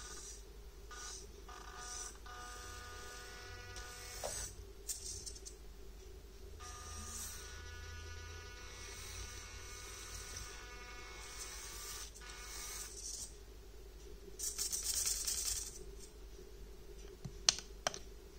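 Orlandoo Hunter micro RC truck's tiny N20 105 rpm gear motor whining, starting and stopping several times with its pitch wavering as the truck crawls over rocks. Two sharp clicks near the end.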